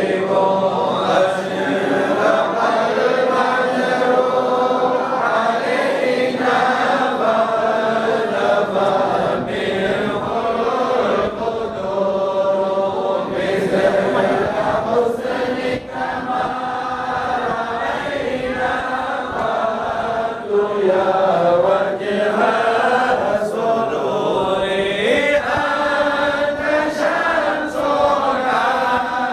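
Large group of men chanting together in unison, the lead voices amplified through handheld microphones.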